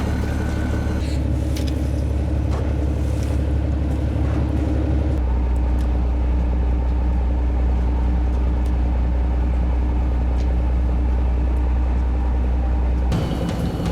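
Fishing boat's engine droning steadily, a low hum whose pitch shifts abruptly a few times.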